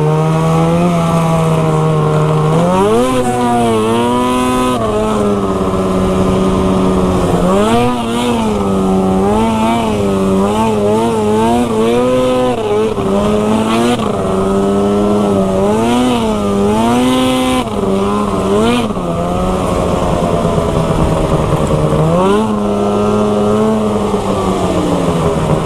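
Snowmobile engine run hard at high revs, its pitch rising and falling again and again as the throttle is worked while the sled crosses broken ice and open water.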